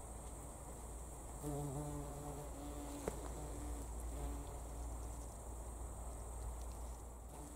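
A flying insect buzzing close by: a low, steady drone with a few overtones comes in about a second and a half in and fades out a few seconds later. Behind it is a faint, steady high hum, and there is a single sharp click midway.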